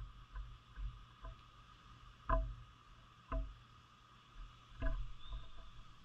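Small birds splashing and dipping in a stone bird bath: a handful of short, irregular water splashes, the loudest two a little over two and three seconds in, with a faint high chirp near the end.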